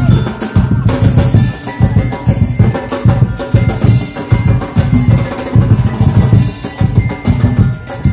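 Live band playing Sinulog dance music: a fast, steady drum beat with melodic tones over it.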